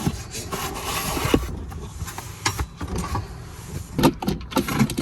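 Rubbing and scraping of plastic console parts, with scattered clicks and knocks, as the truck's center-console trim and factory safe are worked loose.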